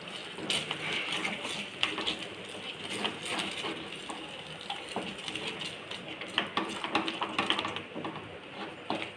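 Wooden spatula stirring syrup in a stainless steel pan, scraping and knocking irregularly against the pan's bottom and sides.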